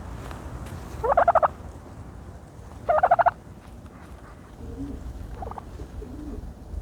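Tom turkey gobbling twice, each gobble a quick run of notes lasting about half a second, about two seconds apart. A few faint low calls follow near the end.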